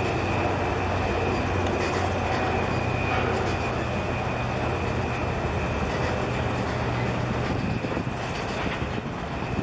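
Diesel engine of a small fishing boat droning steadily as it passes close by, fading about eight seconds in as the boat moves off, over a haze of wind and water noise.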